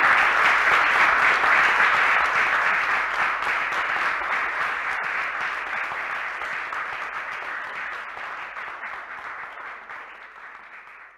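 Audience applauding, the dense clapping steadily thinning out and fading away toward the end.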